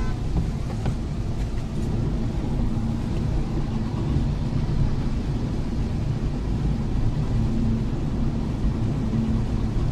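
Steady cabin noise of a Tata Altroz driving through heavy rain on a wet highway: a low rumble of tyres and engine under an even hiss of rain and spray.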